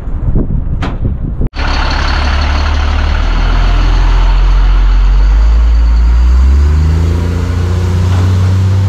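Truck engine running loud and close as a flatbed dump truck towing a skid steer on a trailer pulls past, its pitch climbing in steps as it speeds up. It starts abruptly about a second and a half in, after a cut.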